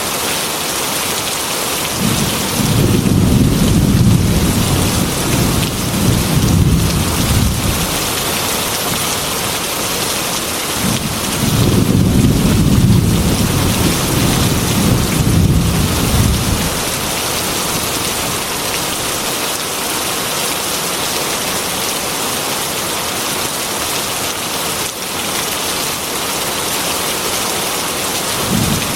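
Heavy rain falling steadily on a metal roof, with two long low rolls of thunder, the first starting about two seconds in and the second about eleven seconds in.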